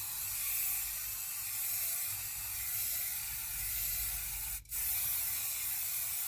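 Aerosol spray can hissing in a long, steady spray, cut off briefly about four and a half seconds in, then a second long spray: foley for spray painting.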